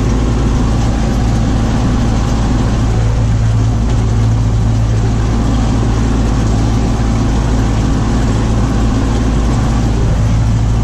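Tractor engine running steadily with a constant low drone while a shredder chops sunflower stalks.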